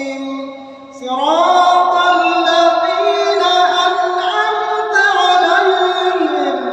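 An imam reciting the Quran aloud in a melodic, sorrowful chant. After a short pause about a second in, his voice rises and holds long notes that glide up and down.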